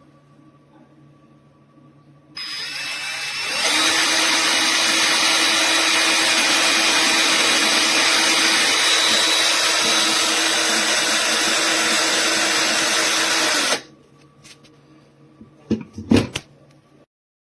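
Cordless power tool's electric motor starting, stepping up to a higher speed about a second later, then running at a steady high whine for about ten seconds before cutting off. A few knocks follow near the end.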